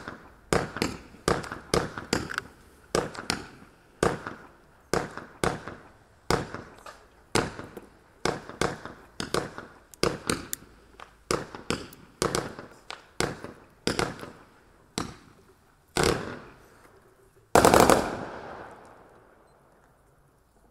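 A 200-gram consumer firework cake (Sunwing SW-C2086 Shooting Range) firing its tubes in sequence: a steady run of sharp pops, about two a second. Near the end comes one louder, longer burst that fades away over a couple of seconds.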